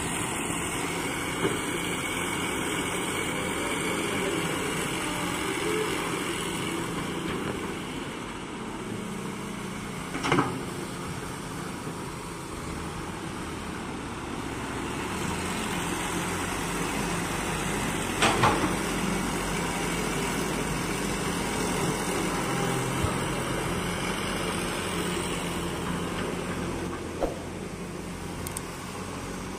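Hitachi hydraulic excavator's diesel engine running steadily while it digs and loads soil into dump trucks, with two short knocks about a third and two thirds of the way through.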